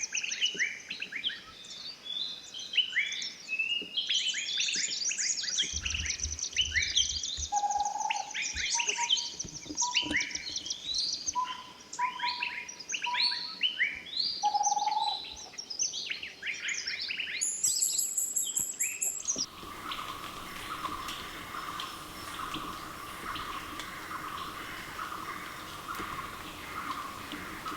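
A dense chorus of tropical forest birds: many overlapping chirps and quick sweeping calls, with a few lower whistled notes. About two-thirds of the way through, it cuts abruptly to an even, steady background drone with a faint pulsing.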